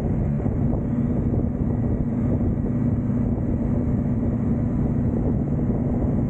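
Motorcycle engine running steadily at cruising speed, with a constant low hum, and wind rushing over the microphone.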